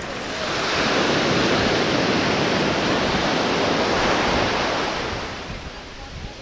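Ocean surf rushing in a broad hiss that swells about half a second in, holds, and fades away near the end.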